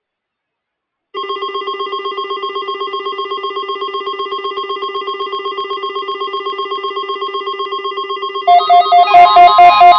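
Weather alert radio alarms going off: a rapidly pulsing electronic beep starts about a second in, and a second, louder beeping alarm at a different pitch joins near the end. These are the receivers' alert tones triggered by a National Weather Service weekly test.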